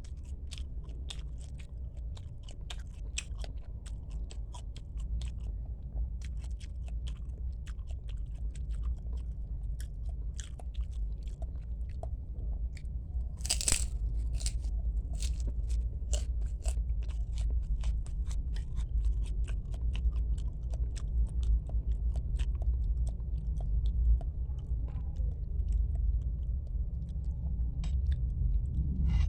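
A person eating bakso close to the microphone: wet chewing with many quick sharp mouth clicks and crunches, and one louder crunch about halfway through, over a steady low hum.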